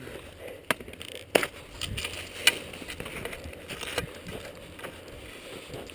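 Skis scraping and sliding through heavy, slushy snow, with a few sharp clicks and knocks along the way.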